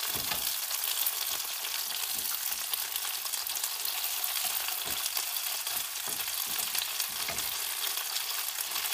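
Chicken wings sizzling in a nonstick frying pan, with a few light taps of tongs as the wings are turned over. The sugar sprinkled on them is melting into caramel in the hot oil.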